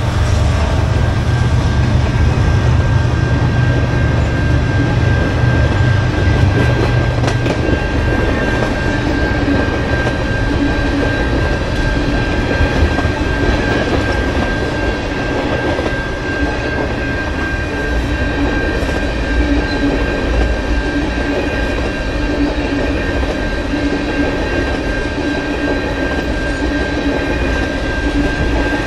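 A train passing close by, with the steady loud rumble of wheels on the rails throughout. A thin steady high-pitched whine comes in about eight seconds in and holds.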